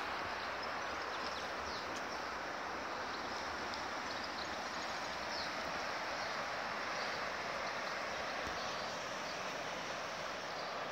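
Steady rushing of the river Cher in flood: a constant, even water noise.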